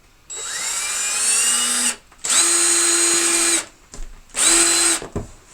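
Power drill running in three bursts, plausibly driving screws: the first speeds up with a rising whine, the second is longer and steady, and the third is short.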